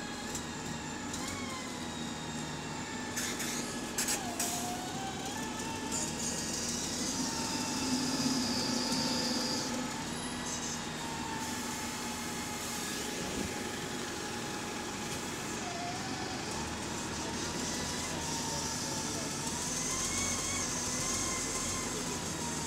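Wright Gemini 2 double-decker diesel bus idling while parked, a steady engine hum with a wavering whine over it. A few sharp clicks come about three to four seconds in, and a high hiss rises from about six to ten seconds in and again near the end.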